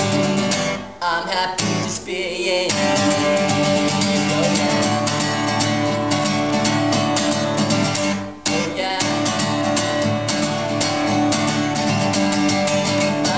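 Acoustic guitar strummed steadily in a live solo performance, with brief breaks in the strumming about a second in and again about eight seconds in.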